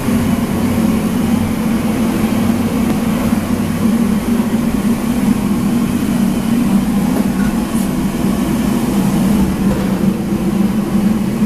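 Steady, loud drone of large kitchen machinery running, with a constant low hum under an even rushing noise.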